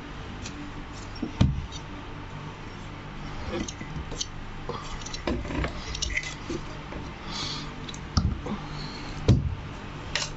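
Hands working on an overlock sewing machine's parts: scattered clicks, knocks and rustles, with sharper knocks about a second and a half in and twice near the end, over a steady low hum.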